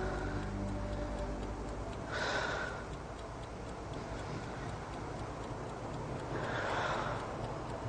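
Bedside clock ticking steadily, with two heavy breaths from a girl, about two seconds in and again near the end.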